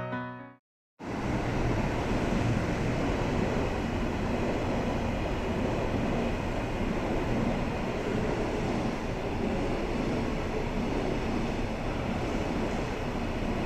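The tail of a short piano jingle ends just after the start and, after a second of silence, a steady rumbling noise of a railway station platform sets in as a JR Kyushu 883 series electric train moves through the station, with no horn, announcement or distinct knocks.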